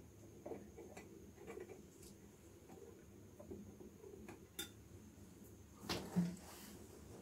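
Faint scattered ticks and taps of a metal pot being handled on a Primus gas canister stove, with a louder metal clatter about six seconds in.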